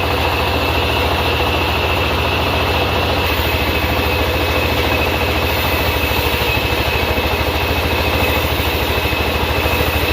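Sawmill engine running steadily at an even, rapid pulse, with a steady high whine over it.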